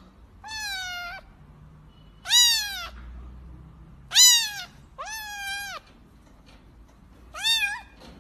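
Kitten meowing five times in a row, each meow rising and then falling in pitch. The second and third meows are the loudest.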